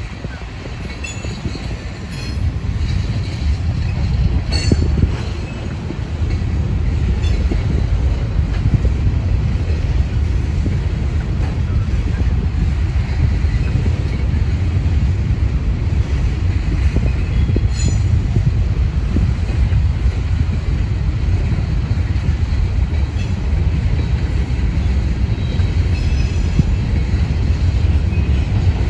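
Loaded rock train's freight cars rolling past: a steady, loud rumble of steel wheels on rail. A few short high-pitched wheel squeals come through now and then.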